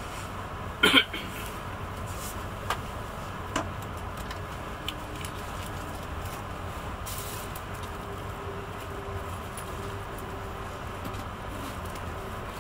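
Steady rumble and rush of a Talgo 350 (Renfe AVE Class S-102) high-speed train, heard from inside the carriage at speed. A sharp double knock about a second in, then a couple of lighter clicks.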